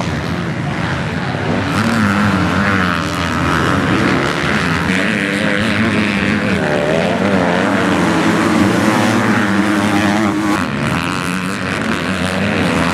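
MX2 motocross bike engines racing, revving up and down again and again as the riders work the throttle around the dirt track.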